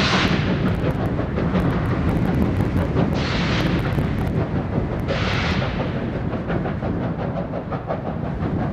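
A steam locomotive hauling a freight train, out of sight, gives a steady low rumble, with three short bursts of hiss a couple of seconds apart.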